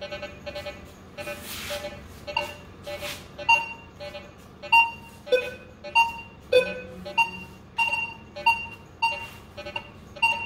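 Minelab Vanquish 540 metal detector beeping as its coil is swept back and forth over a coin hidden among iron nails. At first it gives a quick chatter of low tones, then a regular series of higher-pitched beeps about every half second, with a couple of low tones mixed in. The higher tones are its signal for the coin, and the low ones for the iron around it.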